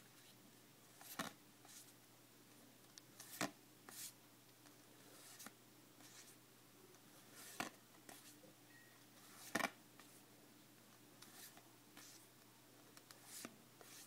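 Yu-Gi-Oh trading cards being leafed through by hand, with a soft card-stock click or snap every couple of seconds as each card is slid from the front of the deck to the back; otherwise near silence.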